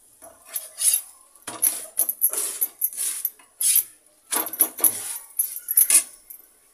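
Metal spatula scraping and clinking against a tawa griddle as a paratha is lifted and turned, in several short irregular bursts.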